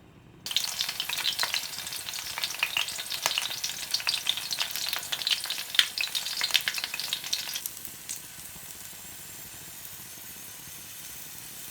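Scallions and garlic frying in hot oil in a pan: a sizzle that starts suddenly about half a second in, loud and full of crackling pops, then drops abruptly to a quieter, steady sizzle about two-thirds of the way through.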